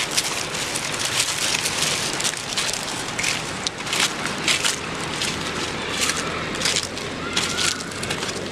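Footsteps crunching through dry fallen leaves, a quick uneven series of crunches a few per second.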